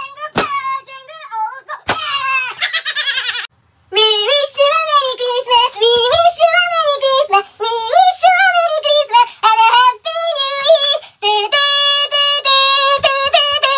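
High-pitched singing voice over music, sliding up and down in pitch, with held notes near the end. Two sharp knocks come in the first two seconds, and a short break of silence falls just before the singing starts.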